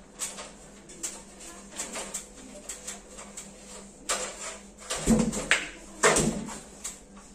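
Irregular light knocks and clatter, with louder thuds about four, five and six seconds in.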